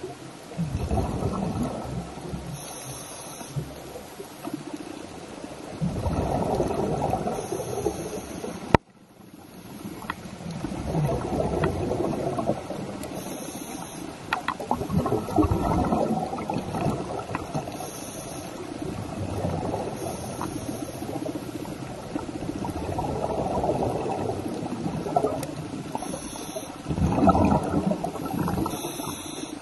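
Underwater bubbling and gurgling from air bubbles, swelling and fading every few seconds. A sharp click about nine seconds in is followed by a brief drop in the sound.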